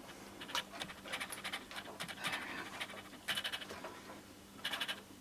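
Wiring scraping and rustling as it is worked up through a motorcycle headlight shell, in several short scratchy strokes.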